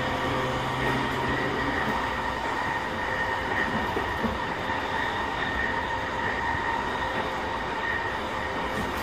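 JR East E217-series electric train, motor car MoHa E217-31, running steadily: a continuous rumble of wheels on rail with steady high tones above it. A low hum drops out about two seconds in.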